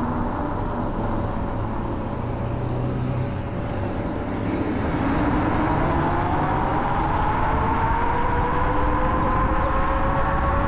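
Electric scooter's hub motors whining under hard acceleration. The whine climbs steadily in pitch from about halfway through, over a steady rush of wind on the chest-mounted microphone.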